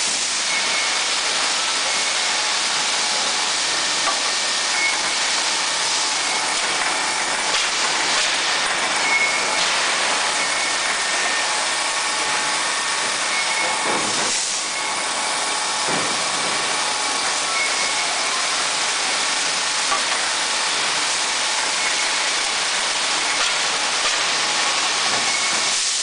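Steady, loud hissing din of a steel rebar mill's counting and bundling line as steel bars run into the collecting pocket, with a faint high whine that comes and goes and a couple of light knocks around the middle.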